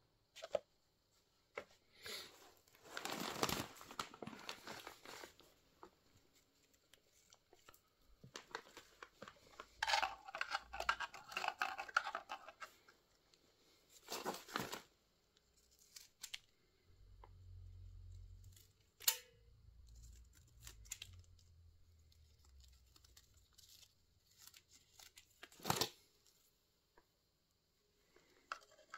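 Plastic sheeting and thin clear plastic cups crinkling and rustling in scattered bursts as lantana cuttings are handled, with short tearing sounds as a cutting's leaves are cut back to about half.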